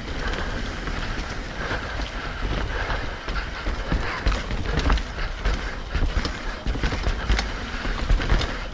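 Mountain bike running down a rough dirt trail: wind and tyre rumble with the frame and parts rattling and knocking over bumps, many irregular clicks throughout.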